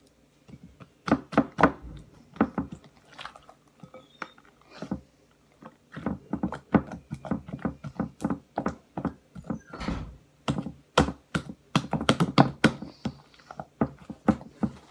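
Slime being kneaded and squished by hand: quick, irregular wet clicks and squelches, with dense runs of them.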